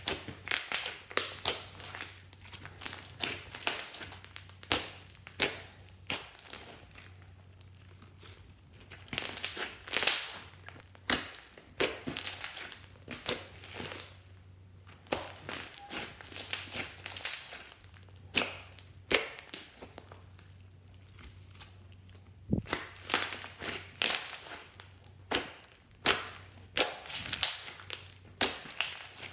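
Hands squishing, kneading and stretching a large mass of mixed slime: irregular wet squelches and sharp crackling pops of trapped air, several a second, with a quieter spell a little past the middle.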